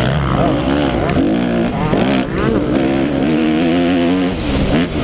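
Honda 250 motocross bike engine at race pace, revving up and falling back again and again as it is ridden through a turn and down a straight. The revs drop briefly about two seconds in and again near the end.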